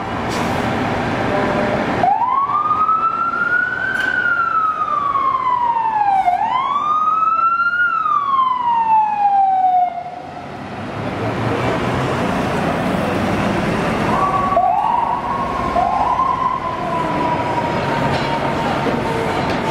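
Fire truck siren wailing over the apparatus' engine noise: it starts about two seconds in, sweeps slowly up and down twice, and cuts off around ten seconds. From about fourteen seconds a second fire truck's siren yelps up three times in quick succession, then holds a steady tone that sinks slowly.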